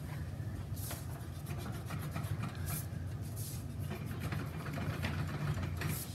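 White block eraser rubbing on paper in short scratchy strokes, erasing pencil lines from an inked drawing, over a steady low hum.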